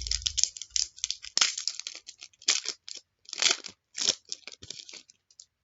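Foil trading-card pack being torn open and its wrapper crinkled, a run of irregular crackling rips and rustles that stops shortly before the end.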